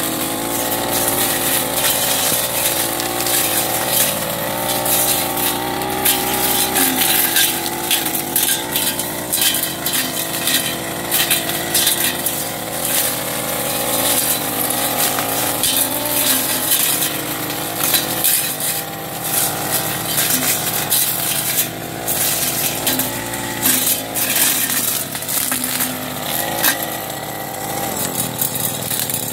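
Backpack brush cutter running at high speed and cutting grass and undergrowth. The engine note wavers a little as the load changes, and frequent sharp clicks and snaps come from the cutting head striking stems.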